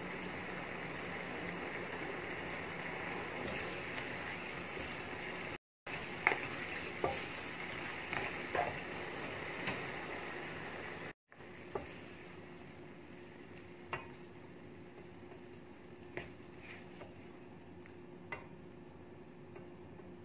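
A squid and celery stir-fry in sauce sizzling and bubbling in a nonstick pan over a gas flame, with a spoon clicking and scraping against the pan in short knocks. The sound cuts out briefly twice; after the second break it is quieter, with a steady low hum under the sizzle and only a few clicks.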